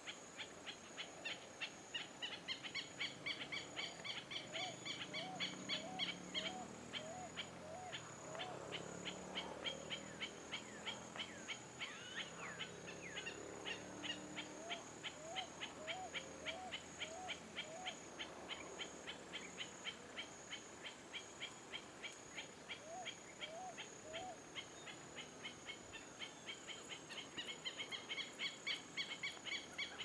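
Countryside birds and insects: a fast, even run of high chips or ticks goes on throughout over a steady high insect drone. Three times, a short series of five to seven low hooting notes joins in.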